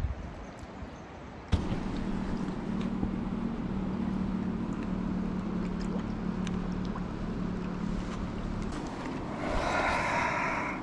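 Flowing river water with a steady low hum under it. The rushing grows louder near the end.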